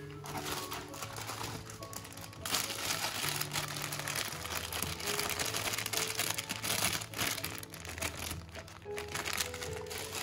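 Packaging crinkling and rustling as items are handled and unwrapped, over background music.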